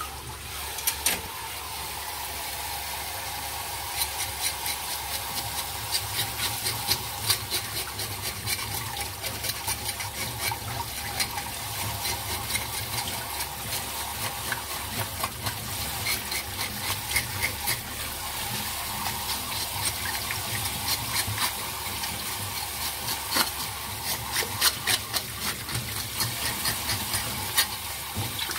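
Tap water pouring into a steel bowl of water, with a metal fish scaler scraping scales off a bigeye fish in quick, irregular clicking strokes and splashes.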